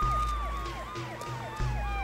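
Emergency vehicle siren wailing, its long tone slowly falling in pitch, with a fast repeating yelp beneath it, over dramatic background music with deep bass notes.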